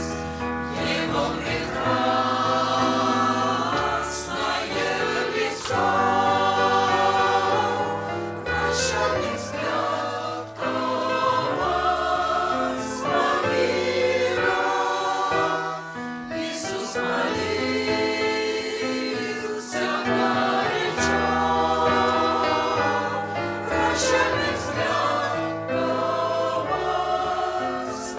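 Choir singing a Russian-language Christian song in held, chord-like phrases over a steady bass accompaniment.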